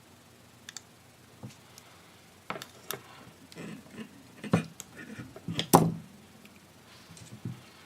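Small knocks, taps and clicks as parts and tools are handled and set down on a workbench, a few faint clicks at first, then a busier run of knocks, the loudest about two thirds of the way in.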